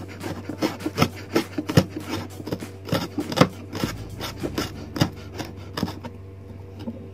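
Kitchen knife mincing garlic and shallot on a wooden cutting board: a quick run of sharp chopping taps, about two or three a second, that thins out about six seconds in.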